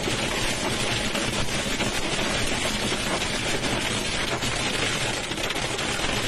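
Hail and heavy rain drumming on a car's roof and windshield, heard from inside the car: a dense, steady clatter of many small hits.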